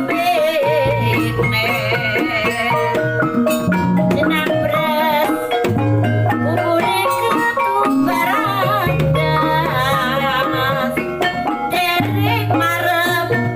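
Javanese traditional dance-accompaniment music: hand drums and ringing metallophone gong notes under a wavering high melody line.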